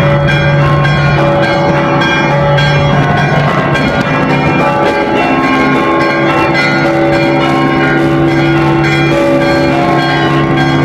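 Russian Orthodox cathedral bells rung by hand from the belfry: many bells of different pitches sounding together without a break over a deep low bell tone.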